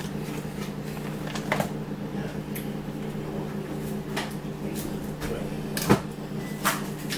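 Scattered clicks and knocks of kitchen packaging being handled, a cardboard mix box and then a small plastic dairy bottle having its cap twisted, with the sharpest knock about six seconds in. A steady low hum runs underneath.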